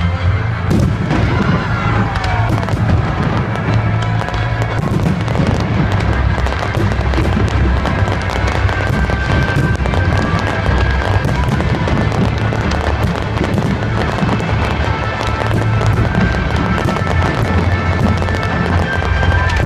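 Fireworks going off in many rapid pops and crackles, over a loud music soundtrack with a heavy bass.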